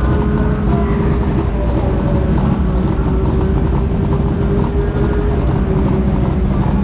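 Race car engines idling steadily while the cars stand still.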